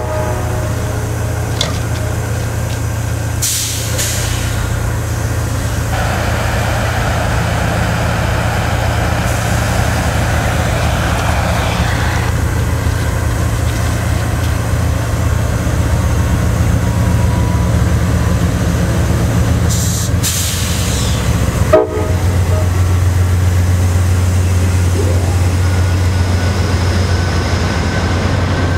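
Amtrak GE P42DC diesel locomotive running with a steady low drone, with a hissing stretch from about six to twelve seconds in. After a cut about 22 seconds in, the drone is louder as the P42DC and the B32-8WH behind it roll slowly past close by.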